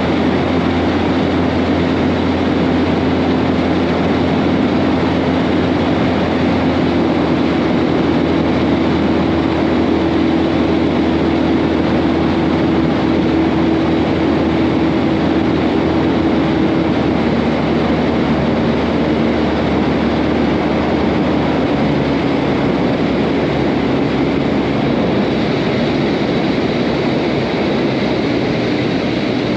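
Outboard motor of a fishing boat running steadily under way, with wind and water rush over the hull. Its hum shifts slightly in pitch a few times.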